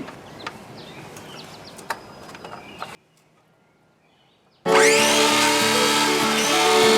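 Faint background noise with a few small clicks, then a brief gap of dead silence, then background music with steady, stepping tones starting loudly near the end.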